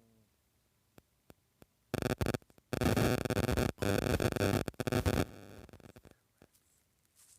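Loud burst of static-like hiss that starts abruptly about two seconds in, drops out briefly a few times, and cuts off suddenly after about three seconds.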